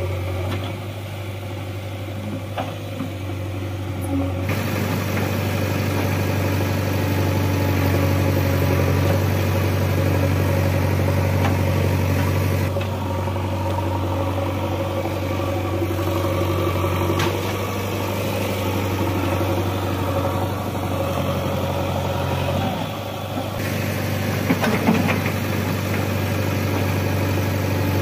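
Diesel engines of a JCB 3DX backhoe loader and a Swaraj tractor running steadily as the backhoe digs and loads soil, a low drone with a few short knocks near the end.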